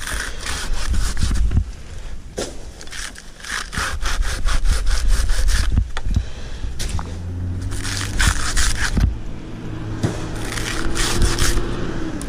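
Hand pruning saw cutting palm wood in quick back-and-forth strokes, in several runs with short pauses between them. A faint low engine hum runs underneath in the second half and stops near the end.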